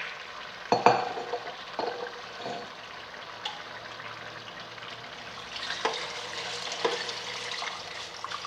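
Chicken, onion, garlic and spices sizzling in oil in a cooking pot as water is poured in, with a few knocks of a utensil or lid against the pot.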